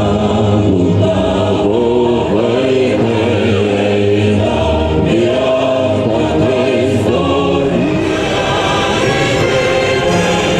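A choir singing a solemn piece in long held notes, with accompaniment.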